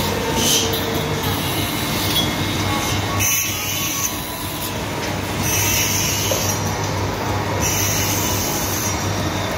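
Bench saw for cutting slate running with a steady hum and grinding noise. A higher-pitched whine comes in three times as stone is cut.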